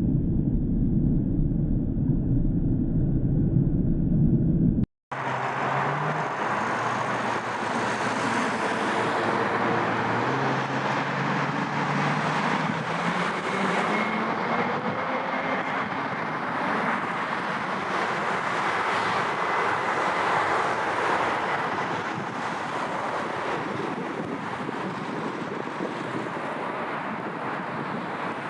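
Jet airliner engines. A low rumble for about five seconds, then a sudden cut, then loud engine noise with faint tones that slowly rise in pitch.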